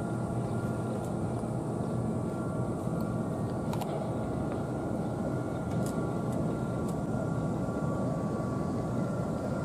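Steady low rumble of outdoor industrial waterfront ambience, with a faint steady hum over it and a few faint ticks.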